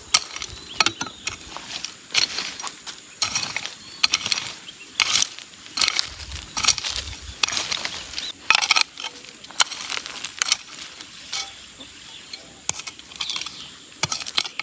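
A hand digging tool working stony soil: irregular scrapes and sharp clinks as the blade bites into the earth and strikes small stones.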